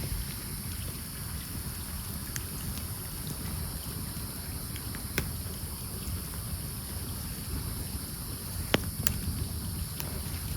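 Campfire of burning logs crackling, with a handful of sharp pops spread out, the loudest one near the end, over a steady low rumble.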